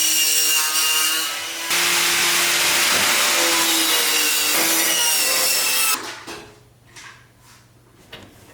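A power tool runs loudly and steadily for about six seconds while the front hub and control arms are stripped off a BMW E36. Its pitch wavers a little with the load, and it eases off briefly about a second and a half in. It then stops, leaving a few faint clicks and knocks of parts being handled.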